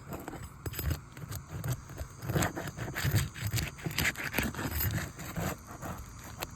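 Asphalt roof shingles being lifted and worked loose by hand: irregular scraping and crackling with short clicks as the tabs are pried up.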